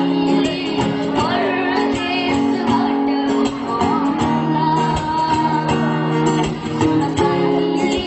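A song: a solo singer's voice over guitar accompaniment.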